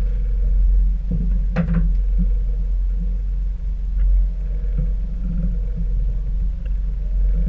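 Steady low rumble of a boat's twin outboard motors running, with a few short knocks from the crew moving in the cockpit.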